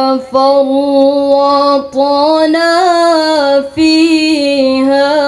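A young woman's voice chanting Quran recitation in the melodic tilawah style, drawing out long held notes with wavering ornaments, through a microphone. Three brief breaks for breath split the phrases, and the pitch climbs a little in the middle before settling back.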